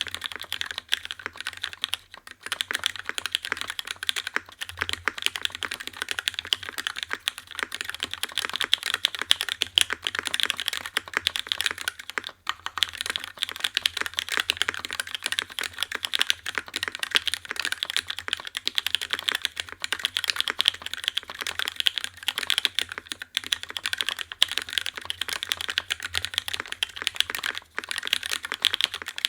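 Continuous fast typing on a UTD 356 Mini mechanical keyboard with lubed and filmed Cherry Retool Black linear switches, an aluminium plate in an O-ring gasket mount and GMK keycaps. A dense run of keystrokes with brief pauses about two and twelve seconds in.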